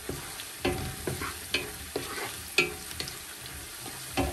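Onions, garlic and cumin seeds frying with a steady sizzle while a spoon stirs the pot, knocking and scraping against its sides every half second to a second.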